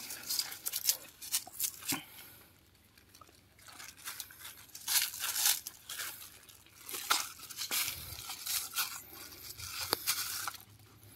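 A thin plastic bag of food crinkling and tearing as it is opened and emptied, in irregular bursts of rustling.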